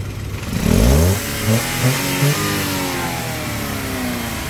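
Toyota Wigo's petrol engine revved: the revs rise quickly, three short throttle blips follow, then the revs slowly fall back. The engine is being tested after a repair of the injector #3 wiring, to check that the misfire is gone.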